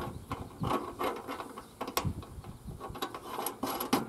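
A wrench snugging the service caps onto the service valves of a mini-split outdoor unit: irregular metal clicks and scrapes, several a second.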